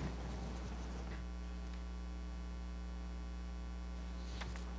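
Steady electrical mains hum: a low hum with an even, buzzy series of overtones, unchanging throughout, with a faint short rustle near the end.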